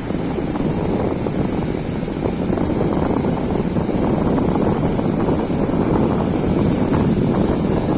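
Strong wind buffeting the microphone: a steady, rough low rumble with no distinct tones or separate events.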